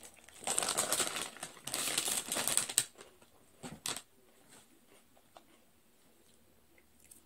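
Lay's potato chip bag crinkling loudly as it is handled, for about two and a half seconds, followed by two short clicks.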